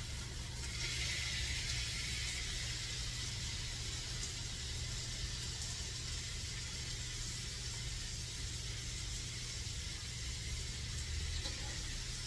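Boneless club steaks sizzling in a frying pan as they are turned over, the sizzle swelling about half a second in and then holding steady over a low hum.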